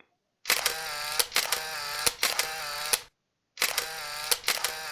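Camera sound effect played back twice with a short gap: a run of shutter clicks over a whirring tone.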